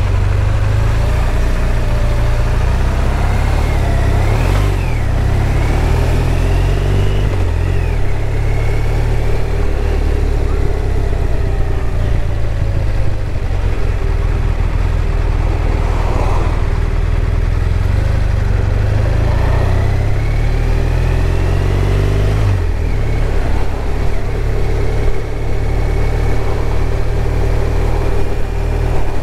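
BMW R1200RT's flat-twin engine running on the move under a heavy low wind rumble; the engine note rises twice as the bike accelerates.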